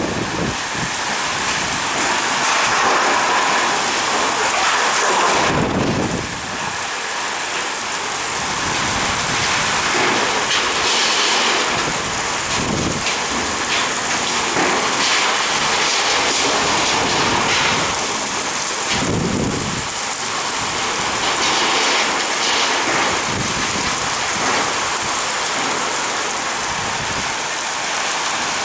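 Heavy rain falling steadily with wind, a dense even hiss, with a couple of brief low rumbles about five seconds in and near twenty seconds in.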